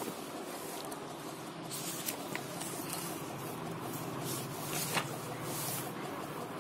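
Pages of a paper textbook being turned and handled, a few soft rustles over a steady low hum.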